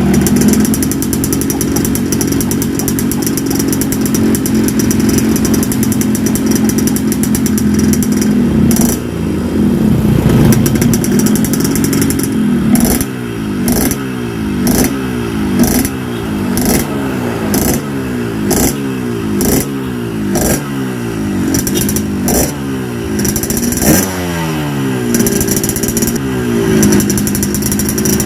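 Yamaha RX-King two-stroke motorcycle engine running through an exhaust with its baffling drilled out ('bobok'). It holds a steady note for about twelve seconds, then is revved in short repeated throttle blips, about one a second.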